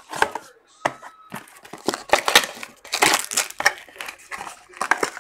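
Foil trading-card pack wrapper crinkling and tearing as it is opened by hand, a busy run of irregular crackles.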